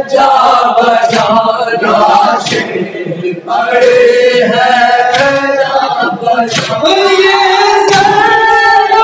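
Men's voices singing an unaccompanied Urdu noha (lament), a lead reciter at a microphone with a group singing along. Now and then a sharp slap cuts through, hands striking chests in matam.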